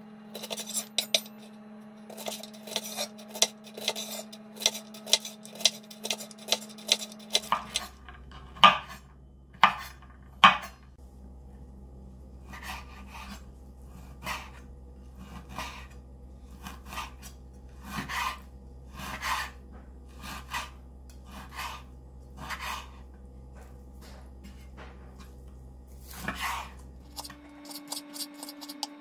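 Chef's knife cutting through a bunch of string beans on a bamboo cutting board: a quick run of crisp snaps and taps. About seven seconds in it changes to the knife slicing raw pork, each stroke ending in a knock on the board, the first few loud and the rest softer, about one a second, over a low hum.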